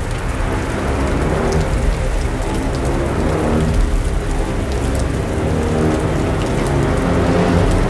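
Heavy rain hissing steadily, setting in suddenly, with dramatic music continuing underneath.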